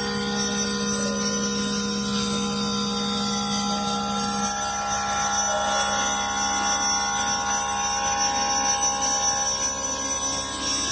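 CNC stone machining center's spindle tool working the edge of a marble slab under water-coolant spray: a steady machine whine with several held tones over a hiss. A low hum among the tones drops away about halfway through.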